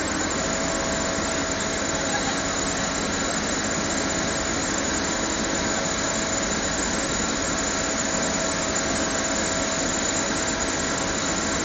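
An excavator's engine and hydraulics run steadily under load, driving a Kemroc hydraulic drive unit that turns a 13-metre drilling auger. A steady whine sits over the engine noise.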